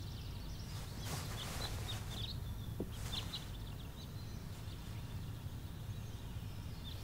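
Quiet background ambience: birds chirping now and then over a steady low hum.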